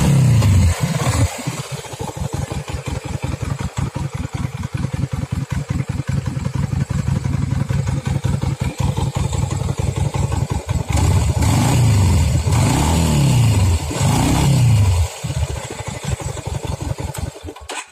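Lifan LF250's air-cooled V-twin on its stock exhaust, revved at the start, then dropping to a lumpy, pulsing idle. It is blipped twice more about ten seconds in, settles back to idle, and cuts off right at the end.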